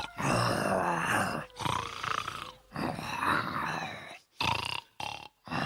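A cartoon dog's loud, exaggerated snoring: a run of about five snores separated by short silent breaks.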